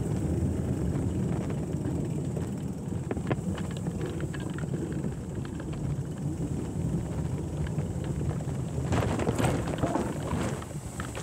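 Steady low rumble of wind on the microphone and a bicycle's tyres rolling over a bridge deck, with a short run of clattering knocks near the end as the wheels cross wooden planks.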